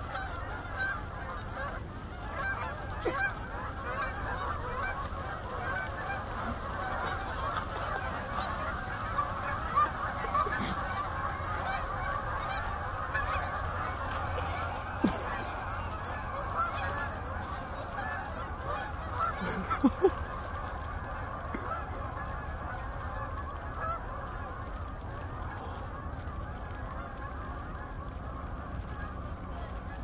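A large flock of Canada geese honking nonstop, many calls overlapping into one dense din. A few brief sharp clicks stand out about 15 and 20 seconds in.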